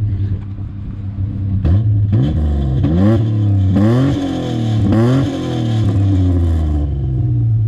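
Holden VL Commodore's 3.8-litre Buick V6 idling and being revved in about five quick blips, each rising and falling back, then settling to a steady idle.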